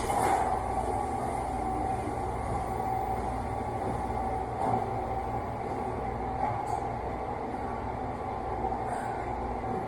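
A machine running steadily: a low rumble under a constant mid-pitched whine, with a few faint ticks.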